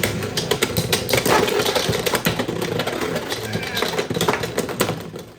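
Two Beyblade X spinning tops whirring around a plastic stadium, with rapid sharp clicks and clacks as they strike each other and the stadium. The whirring and clacking die down near the end as the tops slow.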